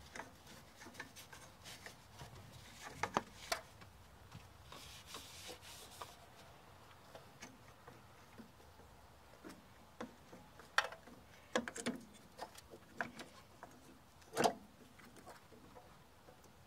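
Paper towel rubbing and wiping around the brake booster's mounting face, with soft rustling and light clicks of handling. Several sharp knocks and clicks follow in the second half, the loudest near the end, as the replacement brake master cylinder is handled and set against the booster.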